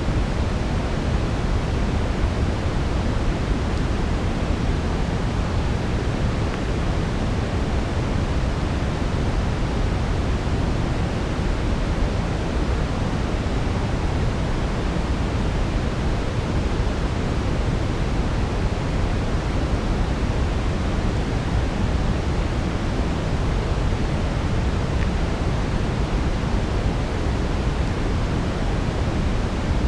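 Steady brown noise: an even, deep hiss heaviest in the low end and fading toward the highs, without change.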